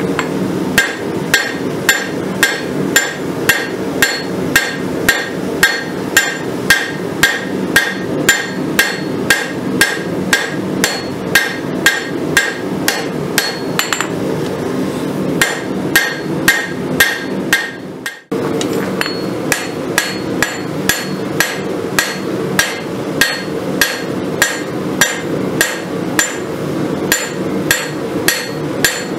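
Hand hammer striking red-hot steel, a farrier's rasp being rough-forged into a kukri blade, on an anvil in a steady rhythm of about two blows a second, each blow ringing. A steady low hum runs underneath, and the hammering breaks off briefly about 18 seconds in before resuming.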